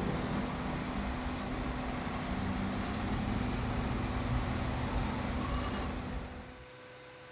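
Chicken tikka pieces sizzling and crackling on skewers over a wire rack on an electric cooktop, under the cooktop's steady hum. The sound drops away about six and a half seconds in.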